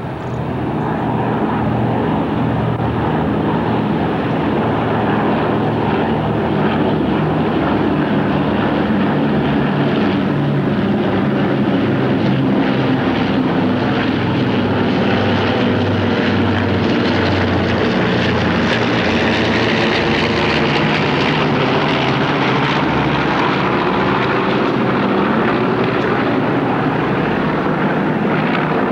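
Radial piston engines of a B-17 bomber droning loudly and steadily in a low flypast, with the tone sweeping through in the second half as it passes overhead.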